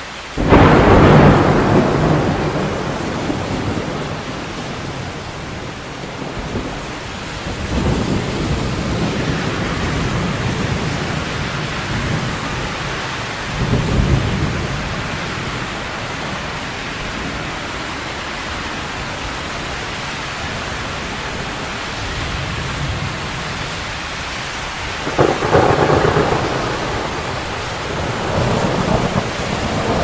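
Thunderstorm with steady rain: a sudden crack of thunder about half a second in that rolls and fades over several seconds, then more rolls of thunder, with a loud one near the end.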